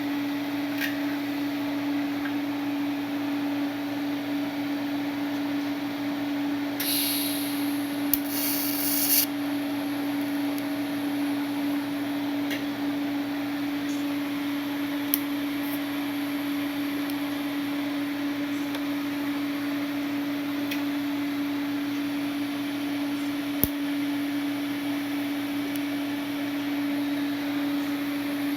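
A steady machine hum, with a short hiss about seven to nine seconds in and a few sharp clicks.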